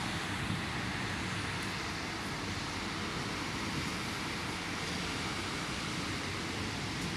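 Rain falling steadily with wind: an even, unbroken hiss.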